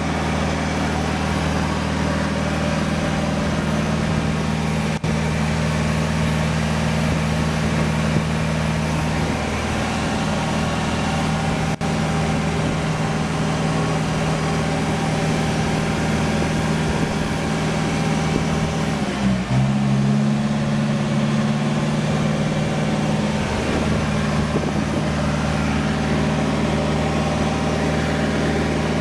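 Backhoe's diesel engine running steadily as the machine is driven at low speed. The engine note shifts about two-thirds of the way through.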